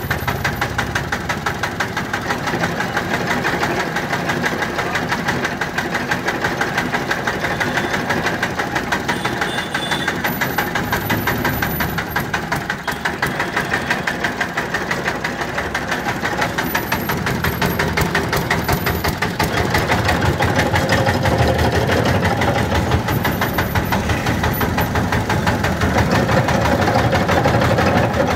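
Small stationary engine running steadily with a rapid, even chugging as it drives a sugarcane juice crusher through a belt and flywheel while cane is fed through the rollers. It gets somewhat louder in the last third.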